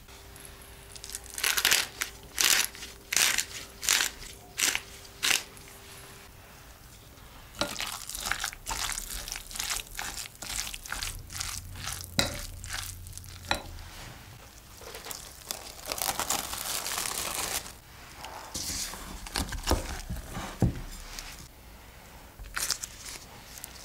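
A wooden spoon stirring raw minced beef and chopped onion in a glass bowl: wet, crackling scraping and squishing. The stirring is preceded by about six sharp crunching strokes early on, and a few low thumps come near the end.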